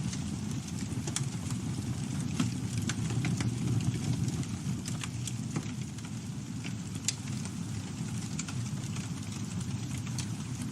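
Campfire burning: a steady low rumble of flames with frequent sharp, irregular crackles from the wood.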